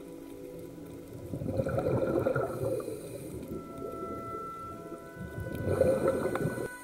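Scuba diver's exhaled bubbles rushing out of a regulator underwater, twice, a few seconds apart, in the rhythm of breathing.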